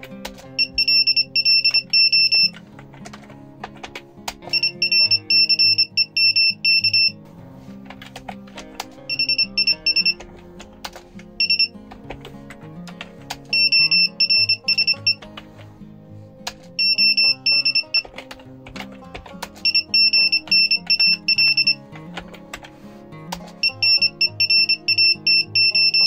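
Small Arduino buzzer beeping Morse code at about 25 words per minute: a single high tone keyed on and off in quick dots and dashes, in groups of a second or two with short pauses between them. It is sending text typed on a keyboard.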